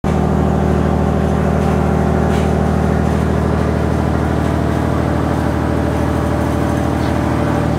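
Passenger ferry's engine idling steadily, a deep, even hum that holds one pitch throughout.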